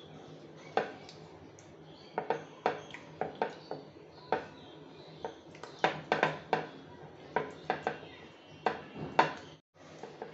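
A hand working beef steaks in marinade in a ceramic baking dish: irregular clicks, knocks and wet slaps of hand, meat and dish, in quick runs.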